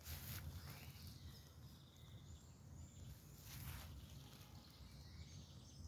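Faint birdsong: thin, high whistled notes and a short rising call over a low, steady rumble, with two brief soft rushing bursts.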